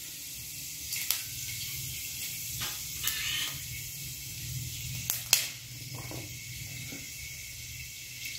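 Whole spices (fennel seeds, a piece of cinnamon stick and a clove) sizzling quietly in hot oil in a kadai, with a few sharp crackles.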